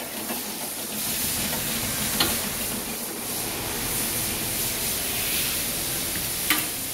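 Steady hissing workshop background noise, with two brief light clicks, one about two seconds in and one near the end.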